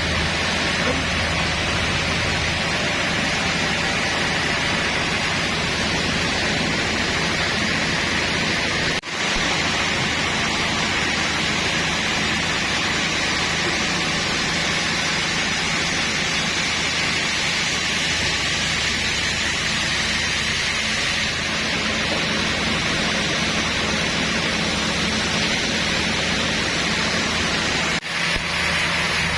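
Sawmill machinery running: a steady loud hiss over a low engine hum, cutting out briefly twice.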